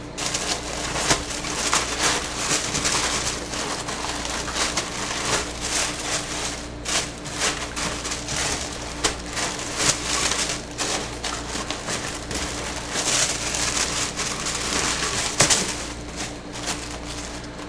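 Tissue paper rustling and crinkling as it is folded over small paperboard soap boxes packed into a shipping box, with light taps and scrapes of the boxes being handled.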